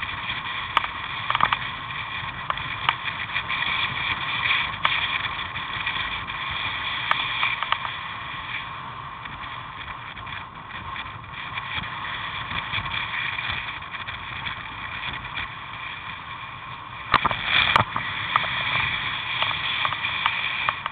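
Steady rushing ride noise picked up by a helmet-mounted camera on a bicycle riding up a paved road, with scattered light clicks and knocks and a louder cluster of knocks about 17 seconds in.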